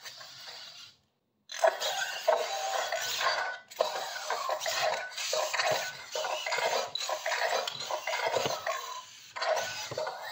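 Robosen Elite Optimus Prime robot toy performing its built-in axe-attack action: a dense run of sharp clanks and clatters starting about a second and a half in.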